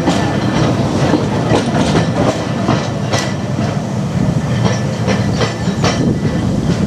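Narrow-gauge electric tram Car 17 pulling away along the track: a steady rumble of wheels on rail with many sharp clicks as the wheels cross the rail joints.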